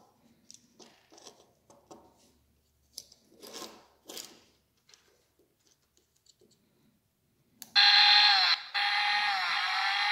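Light clicks and scrapes from handling a plastic Stihl toy chainsaw keychain. Then, near the end, its button sets off a loud electronic chainsaw sound effect from the toy's tiny speaker: a steady tone that cuts out for a moment and then carries on, wavering up and down in pitch.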